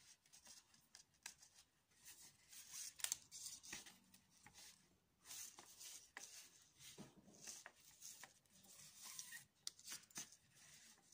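Faint rustling and scraping of macrame cord handled by the fingers as hitch knots are wrapped and pulled tight, with a few light clicks. The sounds come in short, irregular bursts, loudest about three seconds in.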